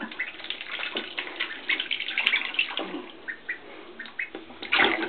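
Water splashing and sloshing in a plastic tub as ducklings swim and paddle in it, louder again near the end.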